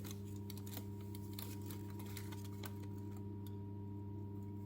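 Faint steady low electrical hum with a few small scattered ticks and clicks.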